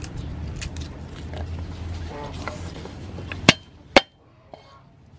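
A cleaver strikes garlic cloves on a wooden chopping block twice near the end, two sharp whacks about half a second apart. Before that come faint clicks and rustling from garlic cloves being peeled by hand, over a low steady rumble.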